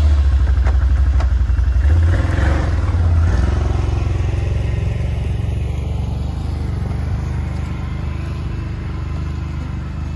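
A vehicle engine running with a low, steady drone that slowly fades over the span.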